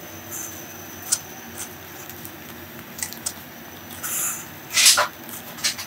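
Hands handling and smoothing pinned cotton fabric pieces: a few short rustles and small clicks, with a louder brush of cloth a little before the end.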